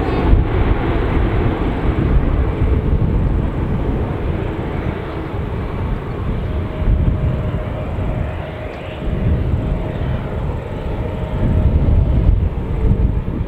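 Jet engines of an arriving Airbus A330-300 with Rolls-Royce Trent 700 engines: a loud, steady, deep roar. It swells slightly in the second half.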